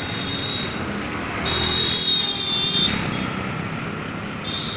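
Road traffic: vehicle engines and tyre noise going by, louder for a second or so about a third of the way in as something passes, with a high wavering tone heard at the same time.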